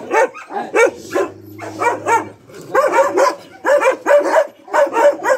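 Dogs barking over and over in quick runs of two to three barks a second, with a short lull about two seconds in.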